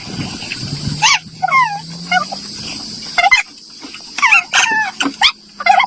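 Short squeaky animal calls that slide up and down in pitch, coming in clusters, over a faint steady low hum.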